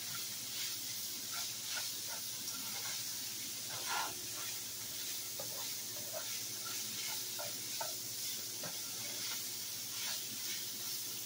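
Ground beef frying in a skillet with a steady sizzle, while a spatula stirs and scrapes it in short strokes.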